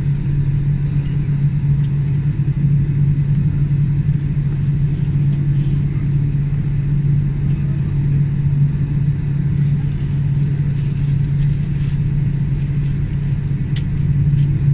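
Steady low engine drone, with a few faint clicks over it.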